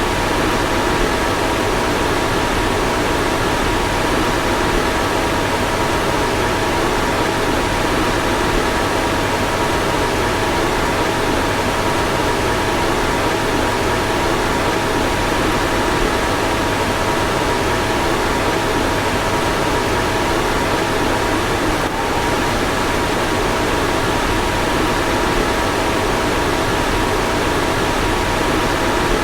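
Car fan running steadily: a constant airy whoosh with a faint, steady multi-tone hum, and one slight blip about three-quarters of the way through.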